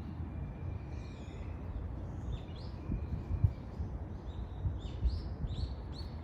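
A bird calling, which the hiker takes for a hawk: a faint held high note about a second in, then a run of short, high, repeated calls in the second half, over a low rumble of wind on the microphone.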